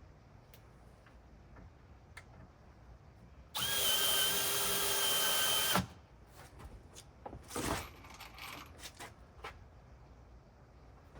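Cordless drill driving a screw into a wooden roof beam: one steady run of about two seconds that cuts off suddenly, followed by a few light knocks and clatters.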